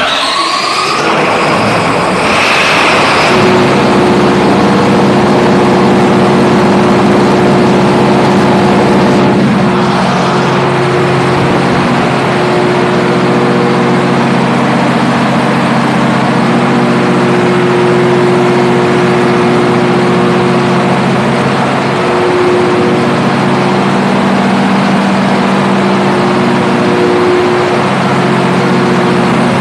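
SDMO diesel generator set just after starting: the engine's sound rises in pitch over the first three seconds or so as it runs up to speed. It then runs steadily at governed speed.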